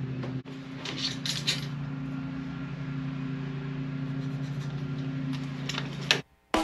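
Steady low hum of workshop equipment, with short scraping and clicking sounds of a tape measure being pulled out and used about a second in and again near the end. The sound cuts off suddenly just before the end.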